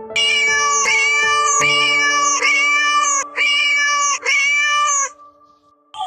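Background music: a high-pitched lead sound repeated about six times in short notes over held low notes, stopping about five seconds in.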